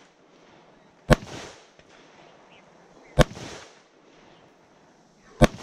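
Three single gunshots about two seconds apart, each trailing off in a short echo.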